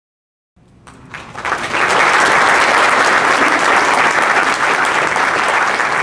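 Audience applauding: the clapping starts about half a second in, swells over a second or so to a full, steady level, and holds there.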